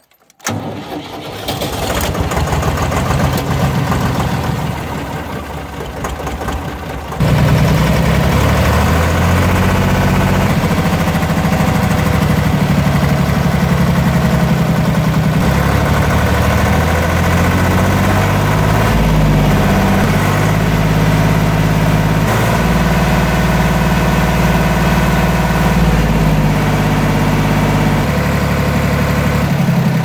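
A Deutz D4506 tractor's three-cylinder air-cooled diesel is cranked and catches about seven seconds in, then runs with its speed stepping up and down a few times. This is the test run after running out of fuel, with air bled from the injector pump and a new fuel filter fitted.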